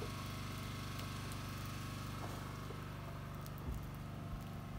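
An engine running steadily with an even low hum, with a soft bump about three and a half seconds in.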